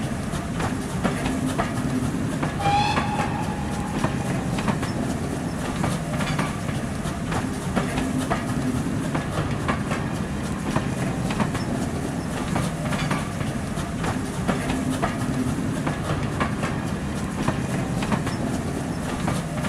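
Passenger train running past on rails: a steady low rumble with wheels clicking over the rail joints, and a brief high tone about three seconds in.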